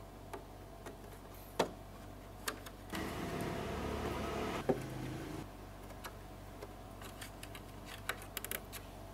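Small scattered plastic clicks and ticks as cable ties are threaded and tightened through a plastic crate's grid, with a quick run of clicks near the end. A louder stretch of noise about three seconds in lasts a couple of seconds.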